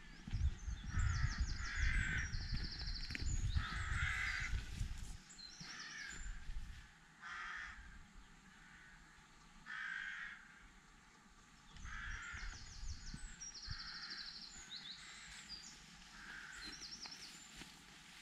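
Birds calling in countryside: repeated short calls about every second or two, and a small songbird's quick trills higher up. A low rumble is heard in the first five seconds and fades after that.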